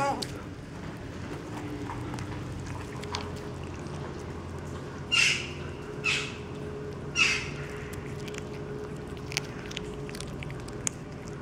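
Three short, harsh bird calls about a second apart, over a steady low background hum. A few faint clicks follow as the cat chews fish.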